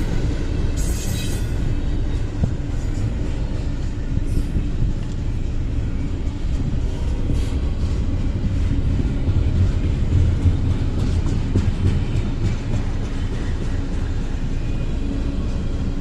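A train rolling slowly past, slowing down: a steady low rumble of the cars on the rails, with faint clicks.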